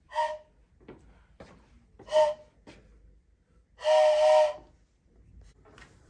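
A hand-held train whistle blown by mouth, sounding a breathy chord of several notes: two short toots, then a longer, louder blast about four seconds in.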